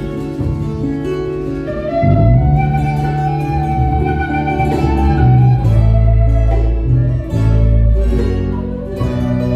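Andean romantic ballad played by a band: quena flute carrying the melody over charango, acoustic guitar and bass guitar. It opens softer, and about two seconds in the full band comes in with a strong bass line under a long, wavering flute melody.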